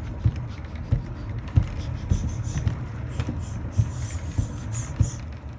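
Cat exercise wheel turning under a running cat: a low rolling rumble with irregular thumps of the paws every few tenths of a second.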